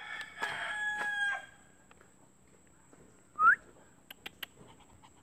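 A rooster crowing in the distance: one held, level call lasting about a second and a half. About three and a half seconds in comes a single short, rising whistle from a person calling the dog, the loudest sound here.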